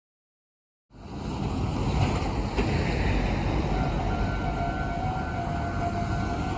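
Steady outdoor rumble at a railway level crossing, cutting in abruptly about a second in. About four seconds in a steady ringing tone joins it, fitting the crossing's electronic warning signal starting up.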